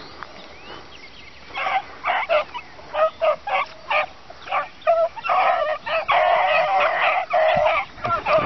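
A pack of beagles baying as they run a rabbit. Scattered separate yelps begin about two seconds in, thicken into a continuous chorus of voices a few seconds later, then thin out near the end.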